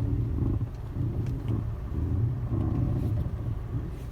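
Steady road and engine rumble inside the cabin of a Volkswagen Passat B6 on the move, with a few faint clicks and no clear suspension crunch.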